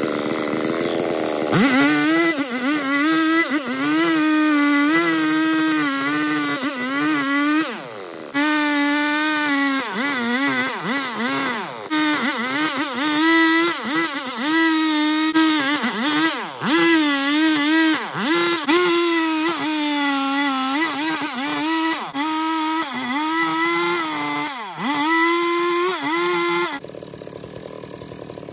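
A Stihl MS 382 two-stroke chainsaw with a 25-inch bar runs at high revs, ripping lengthwise along a red meranti log, its pitch dipping again and again as the chain bites into the wood. It eases off for a moment about eight seconds in, and near the end it drops to a much quieter level.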